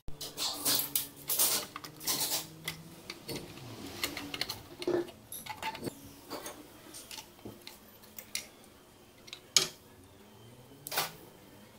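Metal hand tools and engine parts clinking and clattering in irregular knocks, some sharp and loud, as a car engine is taken apart by hand.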